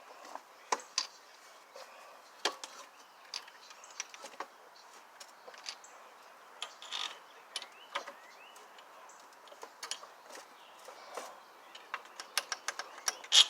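Irregular metallic clicks and clinks as a pressure washer pump is shifted against the engine shaft and bolts are fed into its mounting holes, with one louder clank near the end.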